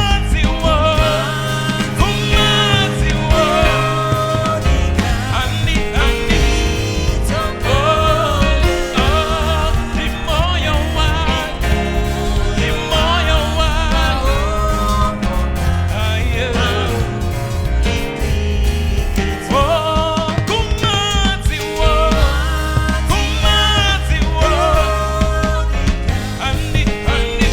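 Live worship band playing with a sung vocal line: a gospel song with steady bass and band backing.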